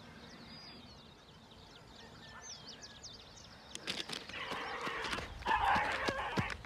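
Faint bird chirps over quiet field ambience, then about four seconds in, rustling, footfalls and knocks in dry grass as the dog is caught, with loud rough cries from the struggling dog.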